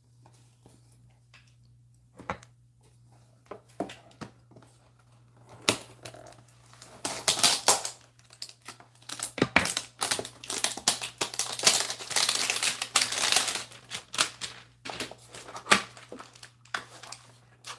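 Cardboard hanger box of trading cards being torn open and its packaging crinkled. There are a few light taps at first, then a long stretch of dense crinkling and tearing from about six seconds in, ending in scattered clicks as the cards are handled.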